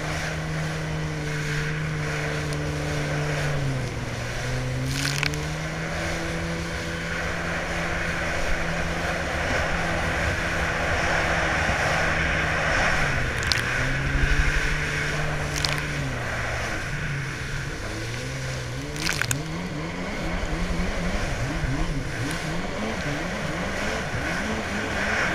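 Jet ski engine running at speed, its pitch steady but dipping briefly as the throttle eases about 4, 13 and 17 seconds in, then wavering quickly up and down near the end as the craft bounces over chop. Water rushing and spray noise run under it, with a few short sharp knocks.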